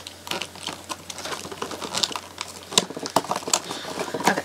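Hands working a doll loose from its plastic box packaging: a busy run of irregular clicks and crackles of plastic, with a few sharper snaps late on.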